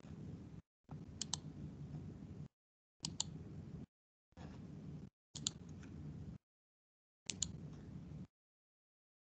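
Computer mouse clicking, mostly in quick pairs a couple of seconds apart, over a low hum that cuts in and out in chunks as the video call's audio gates on and off.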